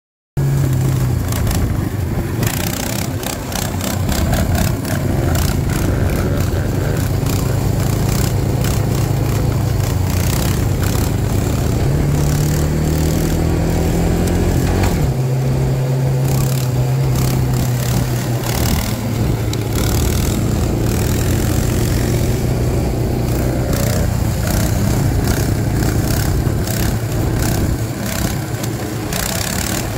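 A dirt bike's engine running steadily, its pitch climbing slowly about twelve seconds in and dropping back suddenly a few seconds later.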